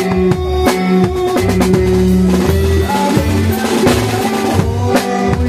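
Drum kit played live with a band: kick, snare and tom strokes over held bass and other pitched notes, with a dense cymbal wash through the middle.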